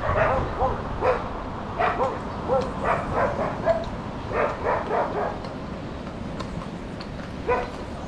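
A dog barking in short repeated bursts, most thickly in the first half, with one more bark near the end. Horses' hooves clop faintly on the paved road.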